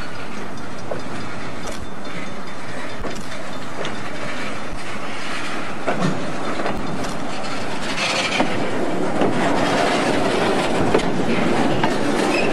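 Railway flatcar rolling along the track toward and past close by, its steel wheels running on the rails; the rolling noise grows louder from about eight seconds in as the car comes alongside.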